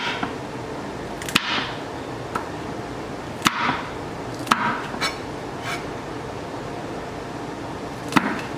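A kitchen knife knocking on a cutting board while slicing serrano chiles into rounds: about eight sharp, irregularly spaced knocks, some followed by a brief scrape or rustle.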